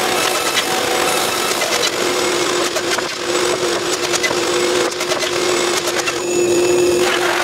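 Wooden stakes knocking and clattering together as they are handled and stacked, over the steady hum of a machine running.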